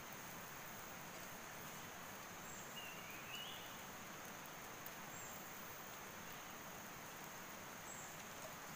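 Quiet riverside forest ambience: a steady high-pitched insect drone over a faint even hiss, with a brief faint rising chirp about three seconds in.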